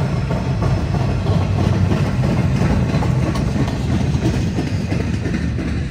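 Freight train cars rolling past on the rails: a steady, heavy rumble of wheels on track with faint scattered clicks.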